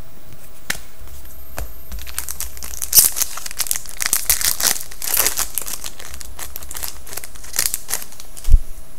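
Foil wrapper of a 2011-12 SP Authentic hockey card pack being torn open and crinkled, in bursts of crackling from about three seconds in until past the middle and again near the end. A dull thump comes just before the end.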